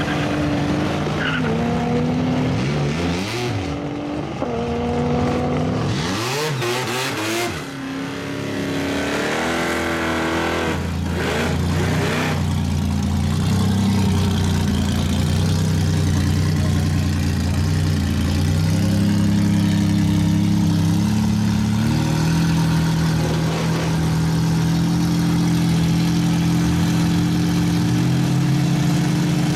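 Drag-racing cars' engines accelerating hard down the strip, the pitch climbing and dropping through gear changes for about twelve seconds. Then other cars' engines idle loudly close by near the start line, the revs shifting a little a couple of times.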